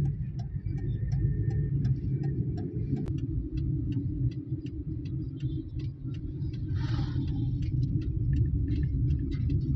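Inside a moving car: steady low engine and road rumble, with a light ticking a few times a second.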